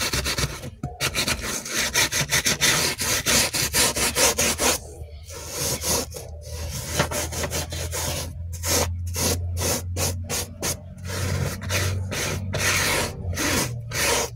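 Small soft brush scrubbing the seams of a leather car seat wet with all-purpose cleaner, in rapid back-and-forth strokes. The strokes come in a fast run at first, then separated by short pauses in the second half.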